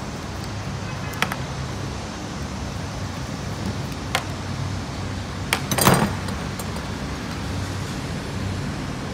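Sharp metal clicks of a screwdriver and screws on an angle grinder's gear head: single clicks about one, four and five and a half seconds in, and a louder clattering cluster about six seconds in. A steady low hum runs underneath.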